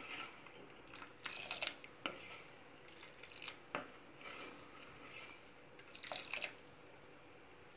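Plastic spoon scraping and tapping against the sides of a stainless steel pot while stirring thick, reduced simmering milk. It comes as a series of short scrapes, the loudest about six seconds in.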